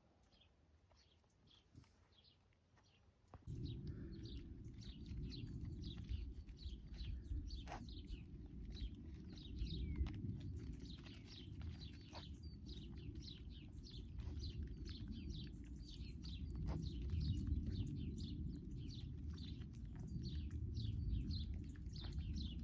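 Small birds chirping steadily, a rapid series of short high falling chirps, over a low rumble that starts suddenly about three seconds in.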